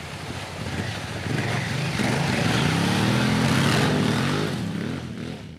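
Honda Africa Twin CRF1000L's parallel-twin engine revving hard as the bike accelerates on dirt, its note climbing and dipping through the revs over tyre and spray noise. It is loudest a little past the middle and fades out near the end.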